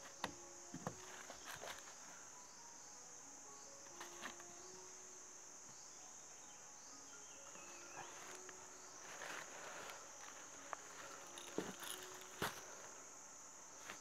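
Steady high-pitched drone of insects in the forest, with scattered sharp knocks and rustles from hand work at the ground while a bamboo bird trap is being set.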